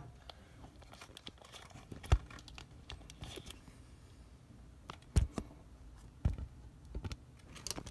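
A few scattered light clicks and knocks of handling, spread a second or more apart, over quiet room tone.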